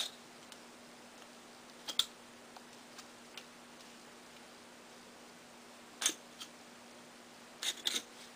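Scattered short metallic clicks and snicks of a wire coat hanger and a hand tool being worked as the wire is stripped and straightened: one at the start, one about two seconds in, one around six seconds, and a quick cluster near the end, over a faint steady hum.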